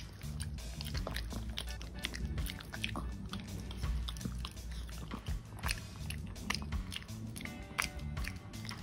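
A toothless Yorkshire terrier gumming a piece of apple: irregular wet mouth clicks and smacks with no crunch, because it has no teeth to bite through the apple. Soft background music plays underneath.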